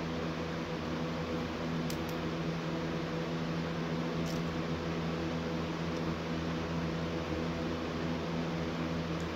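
Steady mechanical hum, with a few faint clicks of small Lego pieces being handled about two and four seconds in.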